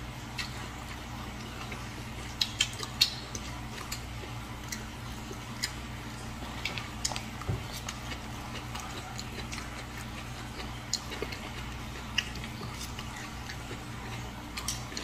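Eating sounds: scattered sharp clicks and taps of chopsticks against the sauce dish and plates, with mouth noises from chewing a rice-paper roll, over a steady low hum. The loudest clicks come in a quick cluster about two and a half seconds in.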